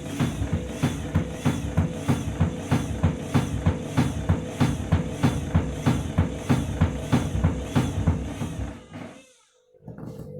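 Washing machine drum banging hard and evenly, about three knocks a second, over a steady hum, during a badly out-of-balance spin with tangled bedding inside. The banging fades away near the end.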